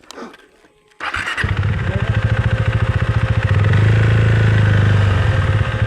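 Husqvarna Svartpilen 401's single-cylinder motorcycle engine starting about a second in, then running in even pulses. It picks up revs for a couple of seconds in the second half, then settles back.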